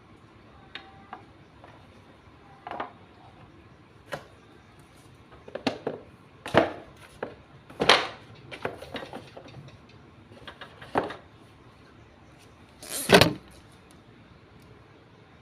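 Scattered knocks, clicks and rustling from a boxed LED lamp and its packaging being handled, with a longer, louder rustle near the end.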